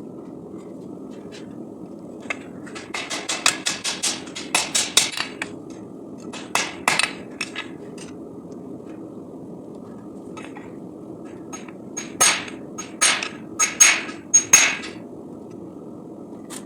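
Hammer striking hot SAE 5160 steel on an anvil in hand forging: quick runs of blows, about four a second, with a pause between runs. The later blows ring.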